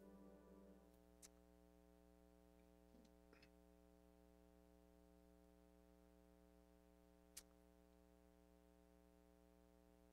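Near silence: a soft sustained keyboard chord fades out within the first second, leaving a faint steady hum and two faint clicks.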